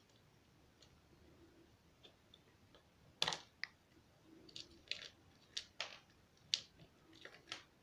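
Faint, scattered clicks and taps of small plastic and metal phone parts being handled, as the camera connectors inside an opened Oppo A5s smartphone are pried off.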